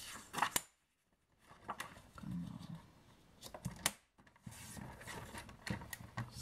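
Sheets of patterned designer paper being handled on a work mat: light rustling and sliding, with a few soft taps and sharp clicks as the paper is picked up and set down. A short low hum comes in about two seconds in.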